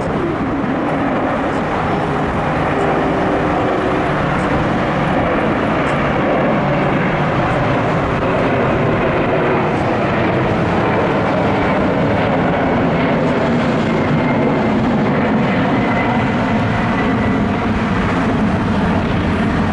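Four-engine Boeing 747 freighter's jet engines at takeoff thrust during its climb-out, a loud, steady rumble.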